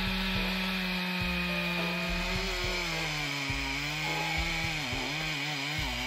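Chainsaw engine running at high speed, cutting: a steady high note that sags and wavers in pitch over the last few seconds as the chain takes load in the wood.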